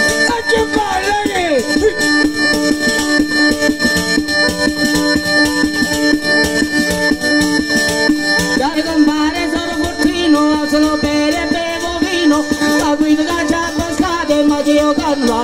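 A southern Italian zampogna (three-palm bagpipe) plays steady drones under its melody, while a tambourine with jingles is shaken and struck in rhythm. A man sings a folk song over it, at the start and again from about halfway through.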